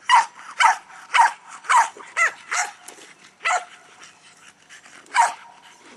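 Dogs barking at the RC truck: a run of about six quick, sharp barks, then two more spaced out.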